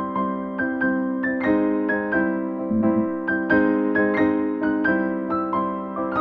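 Background music: an electric piano playing a melody of struck notes, several a second, over sustained chords.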